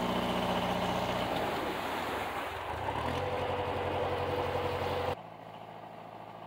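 Narrowboat's diesel engine running just after a long struggle to start, with a fault that leaves it pouring out thick exhaust smoke. The engine note shifts about two to three seconds in, and the sound drops suddenly quieter about five seconds in.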